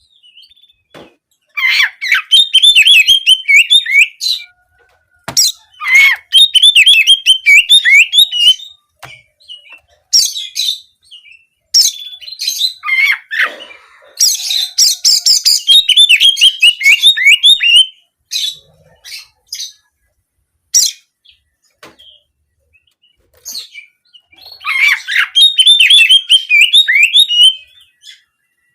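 Oriental magpie-robin (kacer) singing in rapid, warbling canary-like trills. It sings several phrases of a few seconds each with short pauses between them; the longest phrase comes in the middle.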